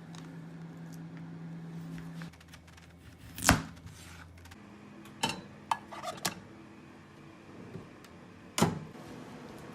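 Kitchen preparation sounds: a handful of sharp knocks and clacks, the loudest about three and a half seconds in and another near the end, with a cluster of smaller clicks in between.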